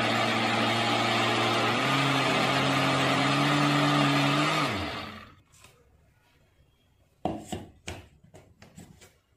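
Kitchen mixer-grinder motor running in whip (pulse) mode, blending an ice-cream mix in its jar: a steady whine that steps up in pitch about two seconds in, then winds down to a stop about five seconds in. Near the end, a few plastic clicks and knocks as the jar is lifted off the base.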